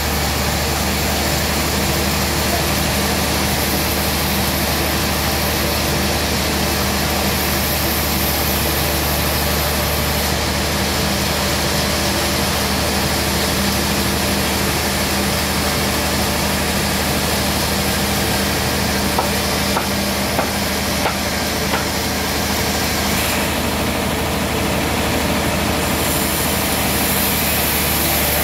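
Large band sawmill running steadily as it saws through a big suar wood log, a constant machine hum with a few faint ticks about two-thirds of the way through.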